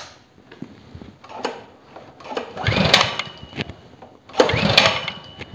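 Recoil pull-starter of a new Lifan 8 hp KP230 petrol engine pulled twice, each pull about a second long with a rising whir as the engine turns over. The engine does not catch on this first start.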